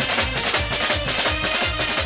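Live folk band music with a fast, steady drum beat of about four strokes a second under pitched melody instruments.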